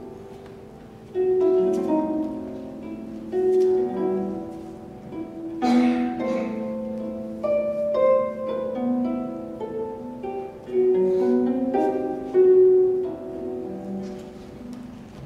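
Solo harp playing a slow piece of plucked single notes and chords that ring and fade, with a brief rush of noise about six seconds in.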